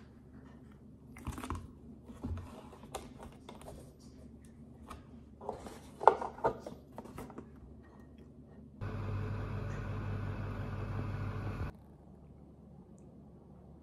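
Paper drink cartons and a mug handled on a kitchen counter: light taps and knocks, the sharpest about six seconds in. Then a steady mechanical hum starts about nine seconds in and cuts off suddenly about three seconds later.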